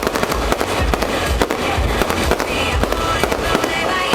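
Fireworks going off in rapid succession: a dense string of bangs and crackles over a low rumble from the bursts.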